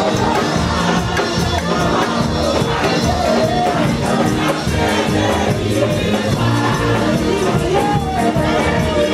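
Gospel praise music played on drums and tambourine with a steady beat, while many voices sing along and the congregation calls out.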